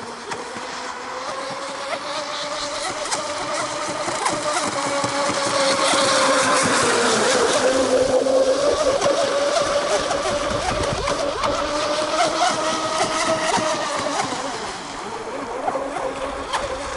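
Motor of a radio-controlled catamaran boat whining steadily at speed over the hiss of water. It grows louder towards the middle, dips briefly in pitch, then eases off near the end.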